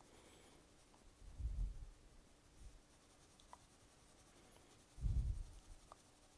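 Graphite pencil shading on drawing paper: soft, faint scratching and rubbing strokes. Two brief low bumps come about a second and a half in and about five seconds in.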